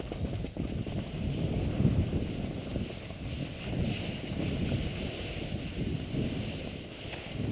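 Wind buffeting the microphone of a camera worn by a descending skier, in a low rumble that swells every couple of seconds with the turns, over the hiss of skis sliding on snow.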